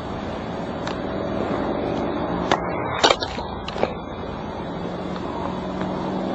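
Sharp clicks and knocks from handling a camcorder, one about a second in and three close together between two and a half and four seconds in, as the camera is moved and its settings changed. Under them a steady outdoor rumble with a vehicle engine slowly growing louder.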